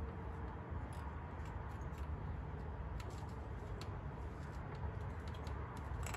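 Faint, scattered light clicks and taps of a metal exhaust gasket and header being handled on the cylinder head's exhaust studs, over a low steady hum.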